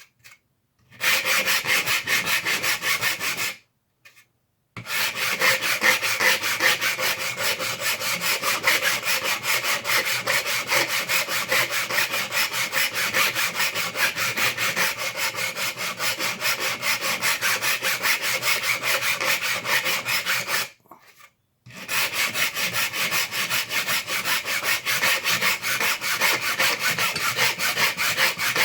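A hand file rasping back and forth on a plastic blaster shell in quick, even strokes, taking the plastic down flush. It stops briefly twice.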